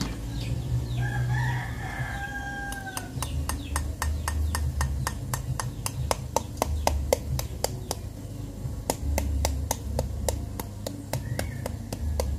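Cake batter being stirred by hand in a mixing bowl, the utensil clicking steadily against the bowl about four times a second. Near the start a rooster crows once, a held call lasting about two seconds.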